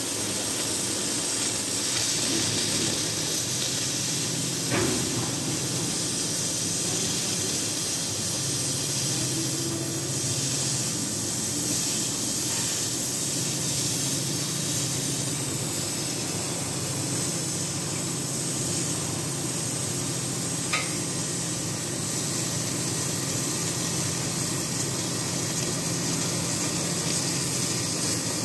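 CNC oxy-fuel cutting torch hissing steadily as its oxygen jet burns through thick steel plate, with a low hum underneath. Two brief sharp cracks come about five seconds in and about twenty seconds in.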